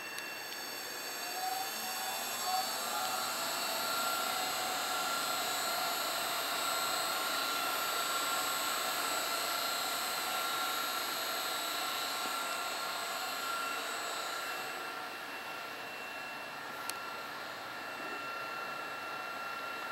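Electric gear motors of a Paul O. Abbe industrial machine running with a steady whine. A tone rises in pitch about two seconds in as the drive comes up to speed, then holds steady, and there is one sharp click near the end.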